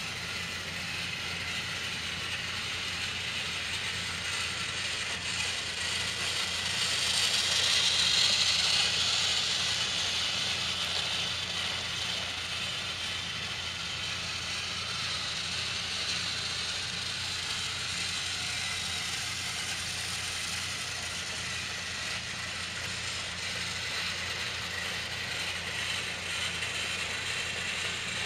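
Battery-powered TrackMaster toy train running: its small motor and gearbox whir steadily and its wheels clatter on plastic track. The sound swells louder about seven to nine seconds in, then settles back.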